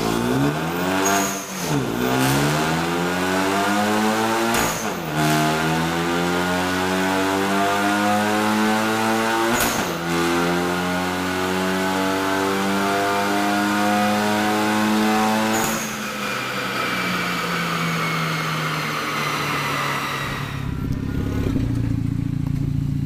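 Hyundai Veloster Turbo's 1.6-litre turbocharged four-cylinder under full throttle on a chassis dyno. The revs climb in three steps, each broken by a brief dip at a gear change, then peak and wind down as the throttle is released. Near the end the sound drops to a quieter engine.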